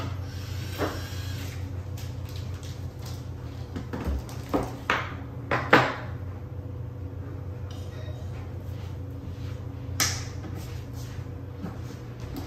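Scattered knocks and clicks from a wall cabinet door and its handle being handled and fitted, with the loudest knock about six seconds in and a sharp click about ten seconds in. A steady low hum runs underneath.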